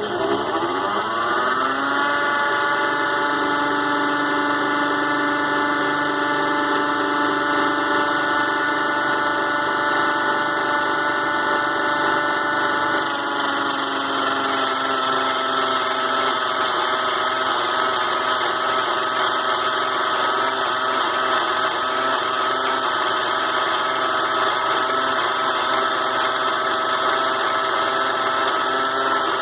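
ZhouYu 6-in-1 mini lathe's DC motor spinning up to speed in the first couple of seconds, then running with a steady whine while turning an aluminium part. About halfway through, the pitch drops slightly and then holds steady again.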